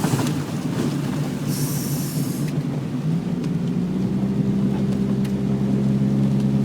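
Car driving on a wet, slushy road: steady road and engine noise, with a short hiss about two seconds in and a steady low engine hum setting in about three seconds in.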